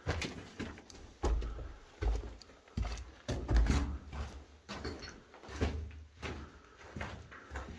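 Footsteps on a floor strewn with rubble and grit, an irregular string of steps, each a low thud with a short scrape.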